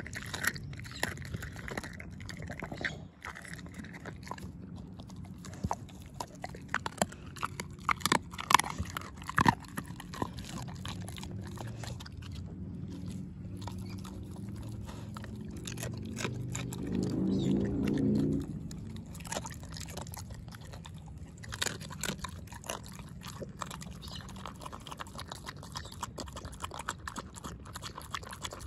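An American Staffordshire Bull Terrier eating from a plastic bowl, chewing and crunching raw chicken and dry kibble in irregular loud crunches and smacks. A louder low hum rises and fades briefly about two-thirds of the way through.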